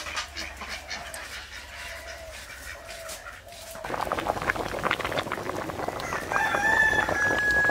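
Chickens clucking, with a rooster crowing in one long call starting about six seconds in.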